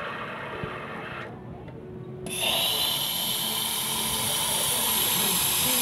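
An espresso machine's steam wand opens about two seconds in and gives a loud, steady, high hiss of steam, used here to heat a glass. Before that, a fainter steady rushing noise dies away in the first second or so.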